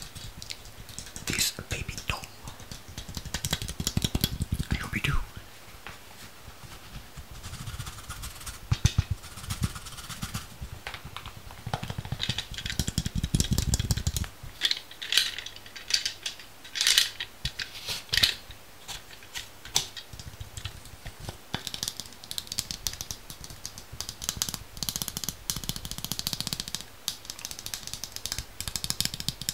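Close-miked ASMR sounds: a steady stream of crisp clicks, taps and crackles mixed with mouth sounds, heavier and denser in several stretches.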